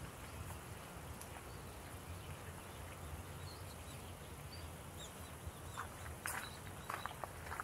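Faint outdoor ambience with a low rumble, then footsteps on a gravel path from about six seconds in.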